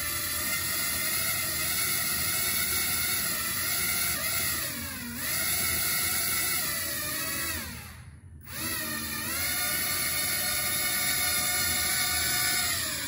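Small drone motors, driving the wheels of a toy monster-truck build, running with a high whine. The pitch sags about five seconds in, the sound cuts out for about half a second a little past the middle, then it picks up again and holds steady.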